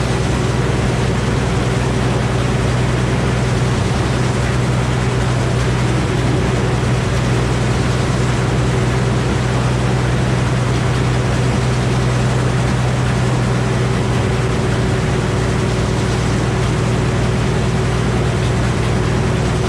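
Old Frick circular sawmill running, a loud steady drone with a constant low hum that holds unchanged throughout.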